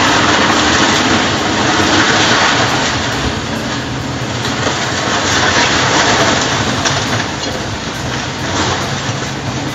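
Volvo EC290B LC tracked excavator's diesel engine running under load as it pulls down a wooden shed, with continuous loud cracking and clattering of breaking timber and falling debris.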